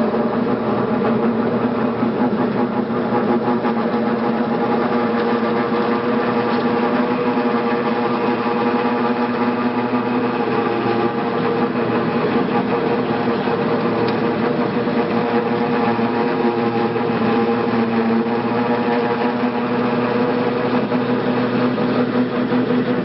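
Tractor engine running steadily at constant speed, a loud even drone with no change in pitch.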